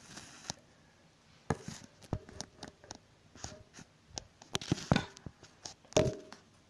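Irregular clicks, knocks and short rustles of handling, with the loudest knocks about a second and a half in, around five seconds in and at six seconds.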